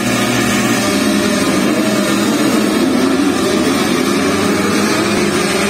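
A full field of motocross motorcycles revving hard and accelerating away from the start together, many engines at once, loud and steady.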